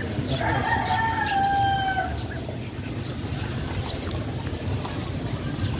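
A rooster crowing once, starting about half a second in and lasting under two seconds, its pitch dropping slightly at the end.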